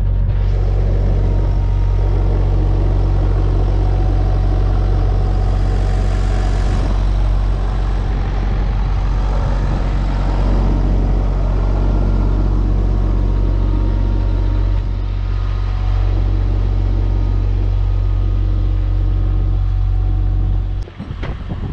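JCB 8025 mini excavator's diesel engine running steadily, its sound swelling with extra hiss twice in the first half. It stops abruptly near the end.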